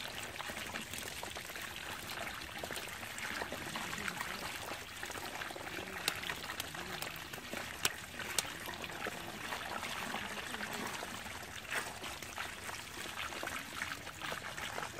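Shallow water pouring and trickling through a gap in a mud dam into a woven bamboo basket, with many small fish flapping and splashing in it. A few sharper clicks about halfway through.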